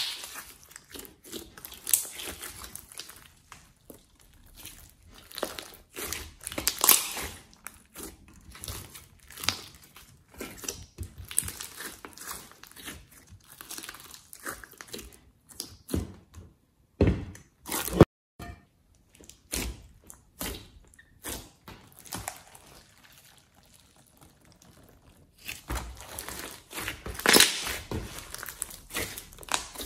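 Glossy slime mixed with floam beads, clay and glitter being squeezed, stretched and folded by hand: sticky squishing with irregular crackles and pops. It goes quieter for a few seconds about three quarters of the way through, then the crackles pick up again near the end.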